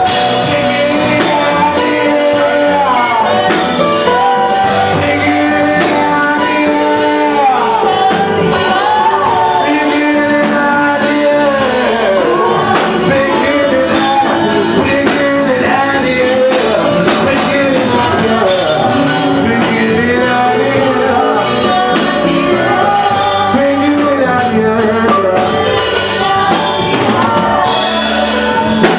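Live gospel worship music: a band playing, with singing over it.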